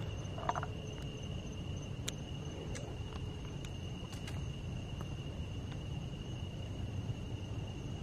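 Crickets singing in a steady, continuous high-pitched chorus over a low rumble of handling noise from the moving camera, with a couple of faint clicks near the start.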